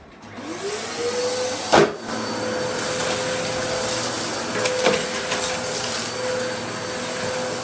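Dyson DC07 All Floors upright vacuum cleaner starting up, its motor pitch rising over the first second and a half, then running steadily. Two sharp knocks cut through, the louder about two seconds in and another near five seconds.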